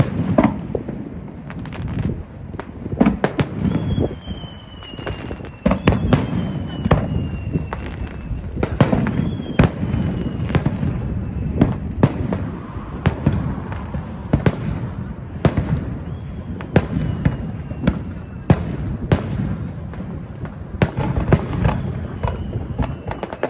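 Fireworks display: a continuous run of sharp bangs from bursting shells over a low rumble, with high whistles gliding down in pitch several times.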